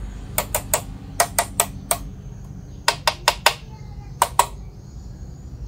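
A metal tool tapping the body of a Huina 1753 RC dump truck: sharp, ringing clinks in four quick runs of two to five taps each. The taps test which parts are metal rather than plastic.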